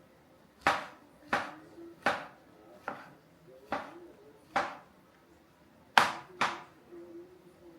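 Kitchen knife cutting through mushrooms onto a cutting board: about eight separate, sharp strokes at an uneven pace, the loudest about six seconds in.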